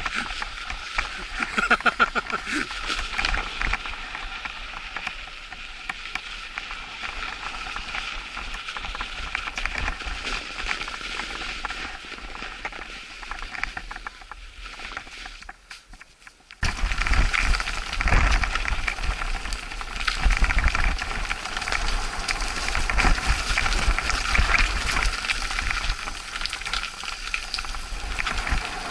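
Mountain bike rolling down a packed-snow track, its tyres crunching and hissing over the snow. After a sudden cut about halfway through, the bike is riding a dry dirt trail: rougher rattling and crunching over the ground, with a low rumble of wind on the microphone.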